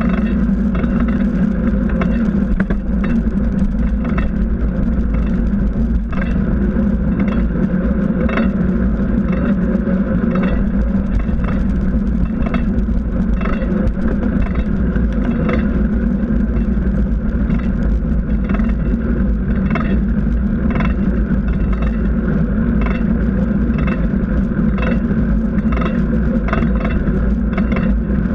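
Steady rumble of a bicycle rolling on asphalt, picked up by a camera mounted on the bike: tyre and road noise with wind on the microphone, and frequent small rattles and clicks from bumps.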